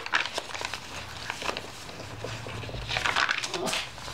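Paper pages of a handmade junk journal being lifted and turned by hand: light rustling and crinkling of the paper with small clicks, and a louder rustle about three seconds in.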